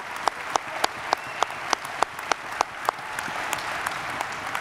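Audience applauding, with one pair of hands clapping louder than the rest in a steady beat of about three claps a second. Those claps stop about three seconds in, and the applause then dies down.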